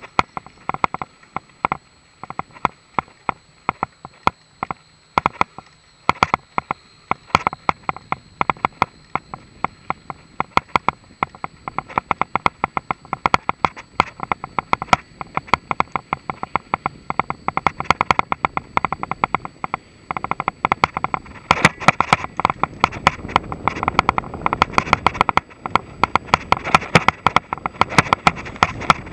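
Mountain bike (a Mongoose XC Salvo Comp full-suspension) rattling and knocking as it rides over a bumpy dirt-and-grass trail, a rapid, irregular patter of small knocks. It grows denser and louder about two-thirds of the way in, with a rising rush underneath.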